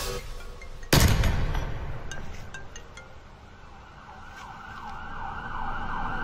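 A single pistol shot about a second in, its echo dying away over the next two seconds. Then an emergency siren fades in, wailing and growing louder toward the end.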